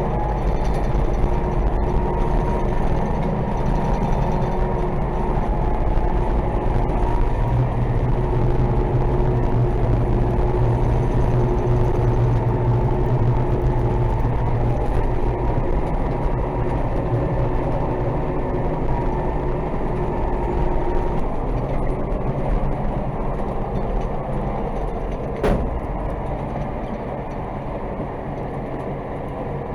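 DT-75 crawler tractor's diesel engine running steadily under way, its low drone swelling for several seconds in the middle. The sound eases off in the last third, with one sharp knock near the end.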